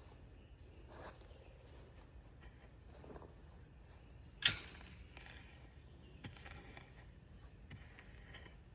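Faint rustling of weeds and soil being pulled and dug by hand, with one sharp knock about four and a half seconds in.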